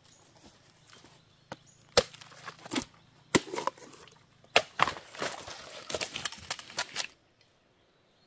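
Hand tool chopping at bamboo shoots: a series of sharp chops, some close together, that stops abruptly about seven seconds in.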